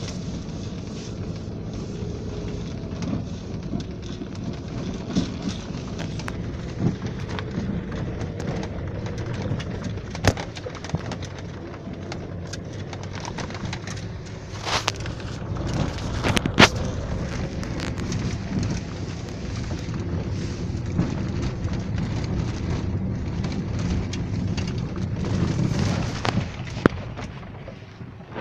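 Steady low rumble of a vehicle's engine and tyres heard from inside the cabin while driving, with a few sharp knocks or clicks now and then; the rumble drops near the end.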